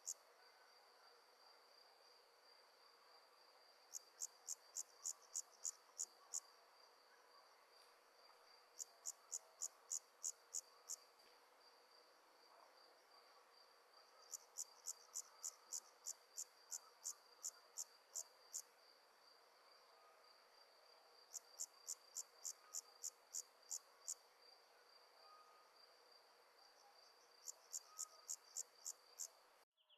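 Night insects chirping: five bursts of evenly spaced high chirps, about three a second, each burst lasting a few seconds, over a faint steady high-pitched trill.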